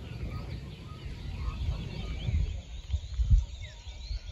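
Many birds chirping and calling with short rising and falling notes, over wind buffeting the microphone in gusts that grow stronger in the second half.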